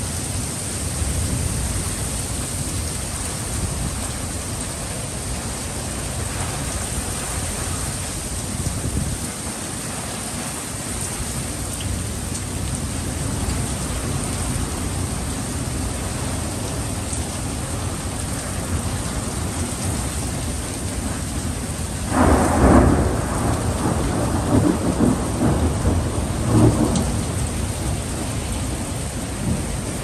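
Steady heavy rain from a winter thunderstorm. About two-thirds of the way through, a loud clap of thunder rumbles on in pulses for several seconds.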